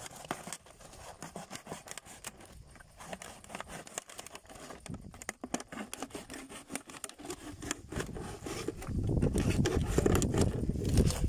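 An Extrema Ratio NK3 neck knife cuts through a thin plastic water bottle, and the plastic crackles and scrapes in many small clicks. About nine seconds in, a louder low rumbling handling noise joins it.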